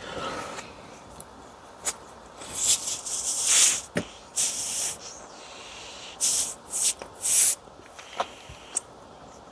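Air blown through the small pilot orifice of a gas water heater in four or five short hissing puffs, with a few light clicks from handling the small parts in between.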